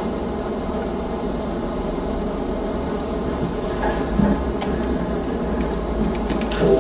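Steady rumbling background noise in a room, with a few light knocks about four seconds in; music starts playing right at the end.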